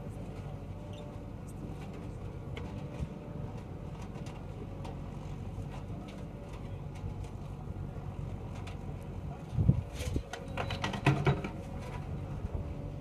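Backhoe loader's diesel engine running steadily at work, with a burst of knocks and clatter about ten seconds in.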